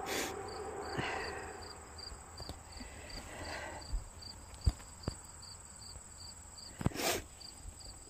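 Crickets chirping steadily in the background, a high pulse about three times a second. A few sharp knocks sound midway, and a brief rustle near the end is the loudest sound.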